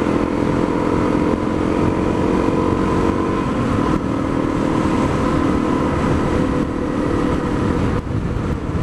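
Honda dual-sport motorcycle's single-cylinder engine running steadily at cruising speed, with wind rush on the microphone.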